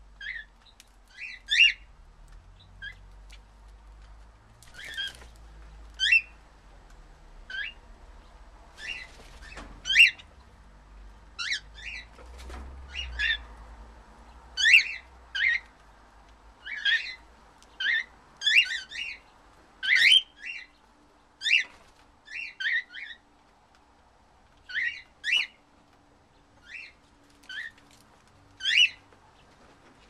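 Cockatiels chirping: short, repeated calls about once a second, some in quick pairs or triplets.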